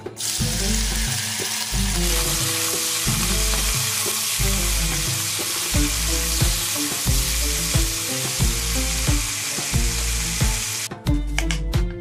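Cubes of beef sizzling loudly as they fry in hot melted mutton fat in a pot, stirred with a spatula. The sizzle starts as the meat drops in and cuts off suddenly near the end, followed by a few sharp knife cuts on a wooden cutting board.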